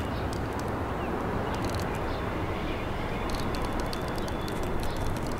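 R32 subway train running around an elevated curve: a steady rumble with bursts of faint high clicking and rattling.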